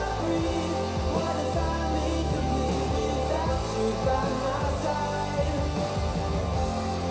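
Pop song with singing and steady bass, playing continuously through a Marshall Middleton portable Bluetooth speaker as a sound test.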